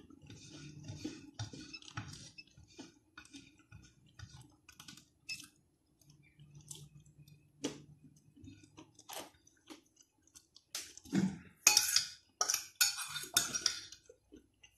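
Chewing, with bread rubbed around a plate to mop up the sauce, then a fork scraping and clinking against the plate in a run of loud strokes near the end.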